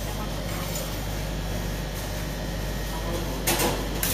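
Steel spatula scraping along a frozen ice cream sheet on a cold plate as it rolls the ice cream up, over a steady low hum; one louder scrape comes about three and a half seconds in.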